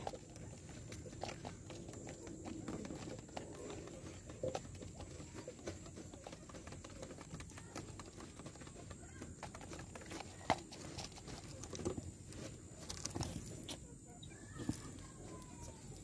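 Helmeted guineafowl feeding on seed at a stump feeder: irregular taps and clicks of beaks pecking, with soft low calls. A short falling call comes near the end.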